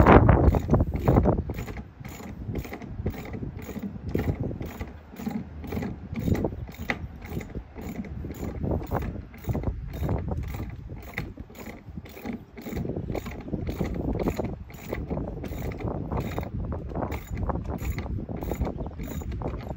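Ratchet wrench with a 19 mm socket clicking steadily, about two clicks a second, as it tightens the nuts on a pull-up cleat's bolts under a boat deck. A loud bump right at the start.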